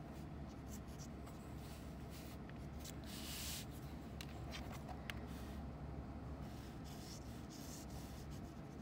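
Mechanical pencil lead scratching on paper as lines are drawn, with faint ticks and a brief louder rustle about three seconds in as a hand slides across the paper, over a steady low hum.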